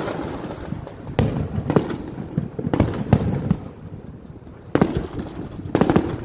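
Aerial fireworks shells bursting: a run of sharp bangs at uneven intervals, roughly one a second, each trailing off in a low rumble.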